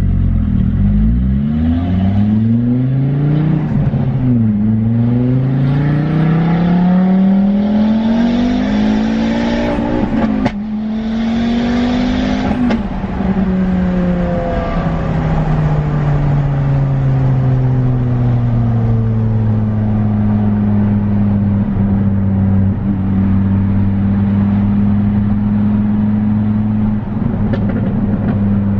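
Ford Focus ST's 2.5-litre turbocharged five-cylinder engine, heard from inside the cabin, accelerating through the gears. The pitch climbs and drops at each upshift over the first dozen seconds, the longest pull climbing for about six seconds. It then settles into a steady cruise with the revs easing slowly.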